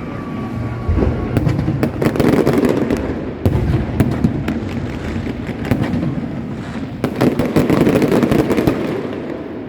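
Fireworks going off: dense volleys of sharp bangs and crackles over a low rumble, heaviest from about one to three seconds in and again from about seven to nearly nine seconds.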